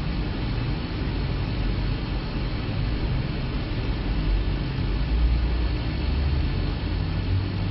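Low engine rumble and road noise of sand-laden tractor-trolleys driving through, steady and a little louder about four to six seconds in.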